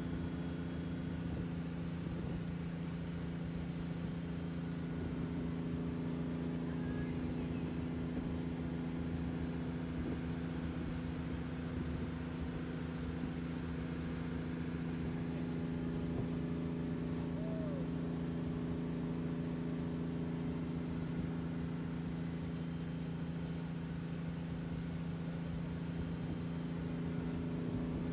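Wakeboard tow boat's engine running at a steady towing speed, a constant drone that holds one pitch, over the rush of water.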